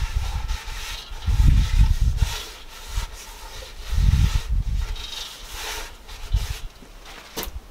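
Paper towel rubbing olive oil around the inside of a hot cast-iron camp oven on a wood stove: a series of irregular scrubbing strokes with dull low bumps as the pot is worked, and a sharp click near the end.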